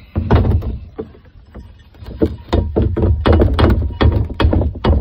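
A steel fire extinguisher cylinder, its head unscrewed, being shaken and knocked to dump its leftover extinguishing powder. There is a loud, heavy rumble of handling, with a run of irregular sharp knocks in the second half.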